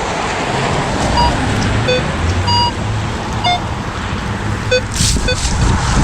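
Minelab Equinox 800 metal detector sounding short target beeps of differing pitch, one after another, as it is swept over a dig hole. Wind rumbles on the microphone throughout.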